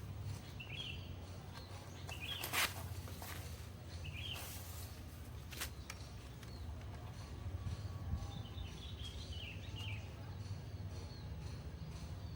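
Small birds chirping in short bursts over a steady low hum, with two sharp clicks of handling, the louder one about two and a half seconds in.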